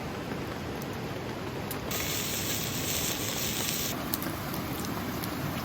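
Campfire cooking: steady rushing noise with a few faint crackles, and a loud hiss that starts about two seconds in and stops sharply two seconds later.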